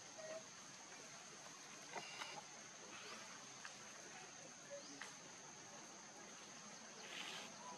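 Quiet outdoor ambience: a steady high-pitched insect drone, with a few faint ticks and a brief soft rustle near the end.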